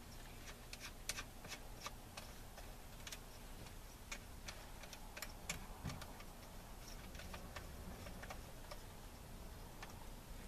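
Scattered, irregular light clicks and ticks as hands work the stainless clamp ring and plastic lid of a Paramount in-floor pool cleaning water valve.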